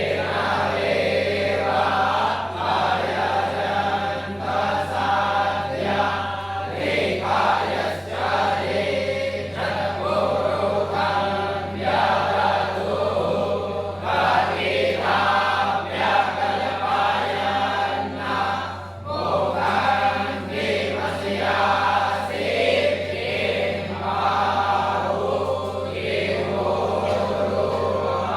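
Group of voices chanting mantras together in unison, continuous with brief pauses for breath, over a steady low electrical hum.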